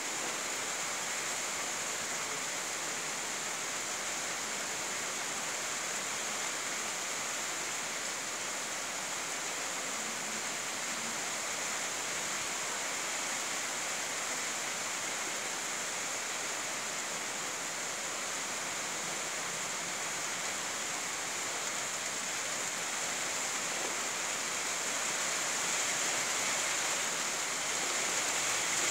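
Steady rainfall, an even hiss without distinct drops, growing a little louder near the end.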